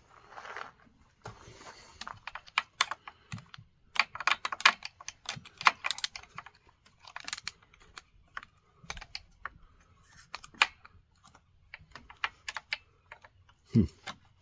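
Irregular light clicks and taps of plastic and metal as a chainsaw carburetor is worked by hand back into line with its rubber intake dampers.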